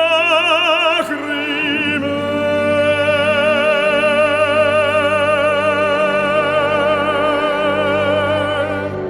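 Operatic singing with wide vibrato: a few shorter sung notes, then one long held note from about two seconds in until near the end, over soft sustained low accompaniment.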